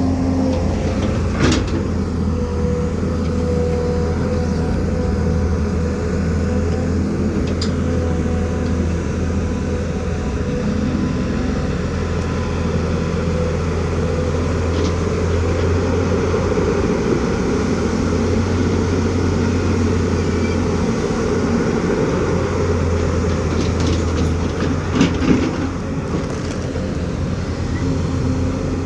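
A heavy engine running steadily with a constant low drone, with a few sharp clicks or knocks, one about a second and a half in and a small cluster near the end.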